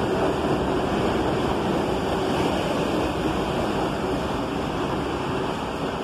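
R62A subway train rolling slowly past on the platform track: a steady rumble and wheel noise that eases a little toward the end.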